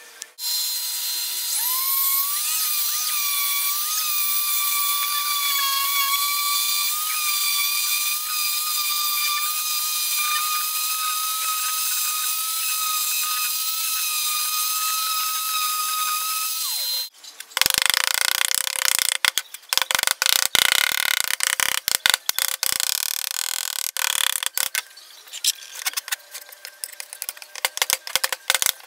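A small high-speed power tool running with a steady high whine that spins up in pitch over the first two seconds. About seventeen seconds in the whine cuts off and gives way to a long run of rapid, irregular clicks and scrapes, with a faint tone underneath.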